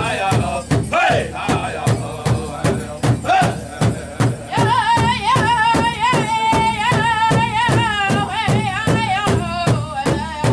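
Powwow drum group: several singers strike one large shared drum with sticks in a steady, even beat while singing together in high, wavering voices. The singing comes in strong about halfway through.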